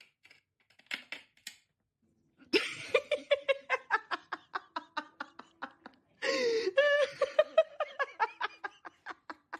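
A person laughing hard in two long bouts of quick, rhythmic 'ha' pulses, the first starting a couple of seconds in and the second about six seconds in. A few faint clicks come before the laughter.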